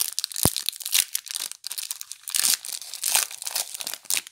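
Foil wrapper of a Magic: The Gathering booster pack crinkling and tearing as it is pulled open by hand, an irregular crackle throughout, with one sharp tap about half a second in.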